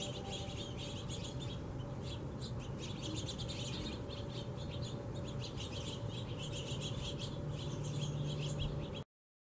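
A flock of house finches chirping busily, many short overlapping chirps, over a steady low hum. It cuts off abruptly about nine seconds in.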